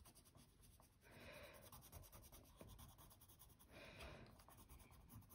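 Faint scratching of a coloured pencil shading on paper, in short spells of strokes.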